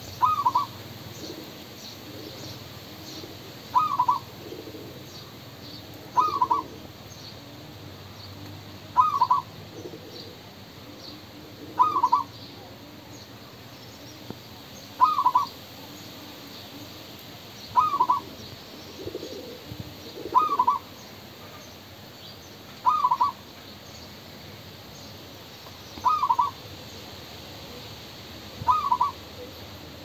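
Zebra dove calling: a short burst of quick cooing notes, repeated about every two and a half to three seconds.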